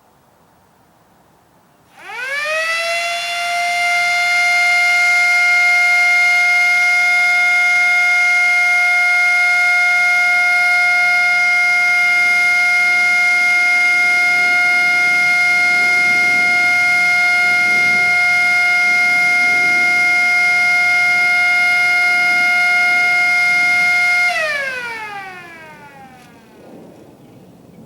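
Small Wolo siren in a homemade metal housing styled on a Federal Signal Model 5, spinning up about two seconds in to a loud, steady single-pitch wail. It holds for about twenty seconds, then winds down with falling pitch near the end.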